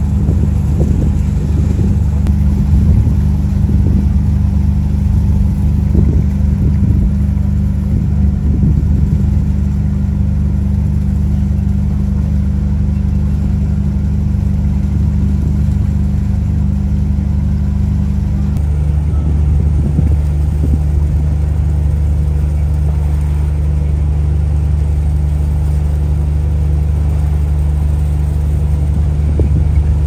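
Boat's diesel engine running at a steady speed, a deep even drone, with wind buffeting the microphone. The engine's tone shifts slightly about eighteen seconds in.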